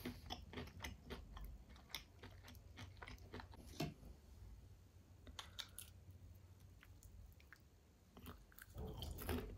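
Close-up chewing of crispy KFC fried chicken: soft, irregular crunches and crackles of the fried breading, the loudest about four seconds in, with a quieter spell before a denser cluster of crunches near the end.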